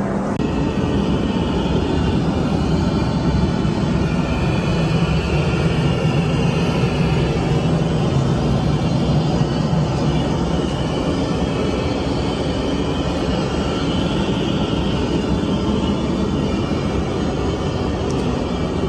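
Steady engine and air noise inside a jet airliner's cabin in flight.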